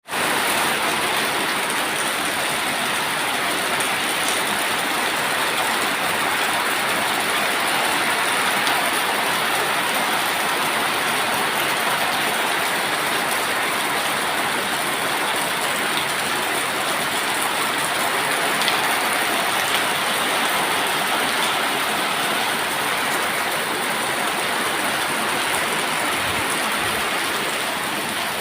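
Heavy rain falling in a steady downpour, an even, unbroken hiss.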